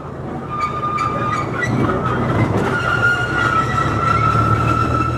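Train running along the track, its wheels squealing in a steady high tone over a low rumble that grows louder, with a few clicks in the first second and a half.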